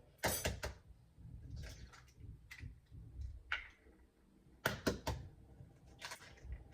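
Kitchen handling sounds: a few sharp knocks and taps of dishes and utensils on a counter, with a cluster of quick strokes near the end and a soft rustle after them.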